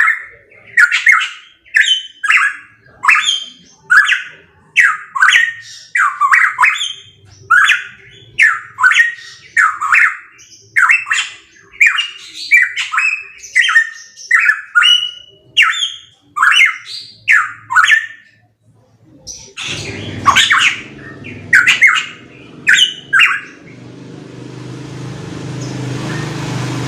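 Pitohui giving short harsh calls over and over, about three every two seconds, with a short break before a last few calls. Near the end a steady rushing noise with a low hum rises and grows louder.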